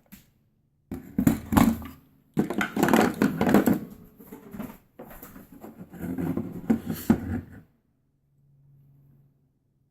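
Hard clicking and clattering of a magazine loader, magazine and cartridges being handled, in several irregular bursts, then a brief faint low hum near the end.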